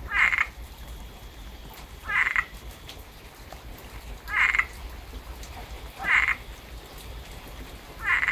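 Tree frog calling: a short pulsed croak repeated about every two seconds, five times.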